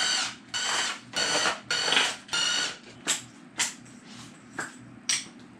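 Cordless drill/driver with a long extension spinning bolts out of the top of the engine in five short bursts, each about half a second. These are followed by four separate sharp metallic clicks from the parts being handled.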